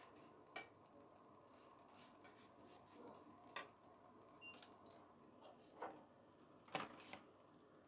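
Near silence broken by about six light metallic clicks and clinks, the loudest near the end: metal tongs tapping against a deep-fryer basket and pan as fried food is lifted out.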